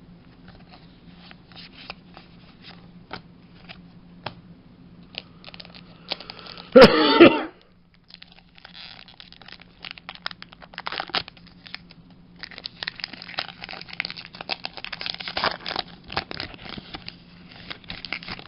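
Pokémon booster pack foil crinkling and tearing open amid light clicks and rustles of cards being handled, densest in the last few seconds. A short loud burst of voice about seven seconds in.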